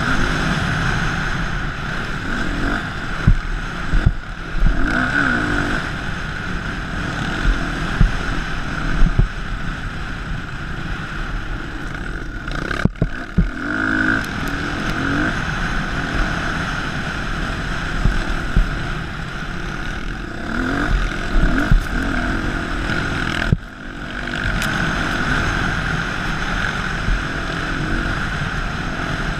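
Dirt bike engine running under throttle while riding over sand, with wind on the microphone and bumps from the ground. The engine sound drops away briefly twice, a little before halfway and again nearer the end.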